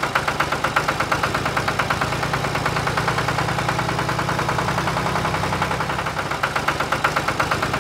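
Tractor engine running at a steady idle-like pace, a fast, even chugging putter over a low hum, as the miniature tractor works the field.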